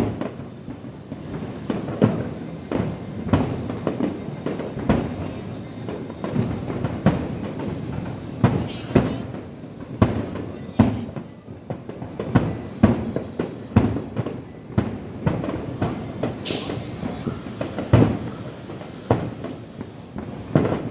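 Aerial fireworks going off in a rapid, irregular string of booms, one or two a second, with a brief rising whistle about sixteen seconds in.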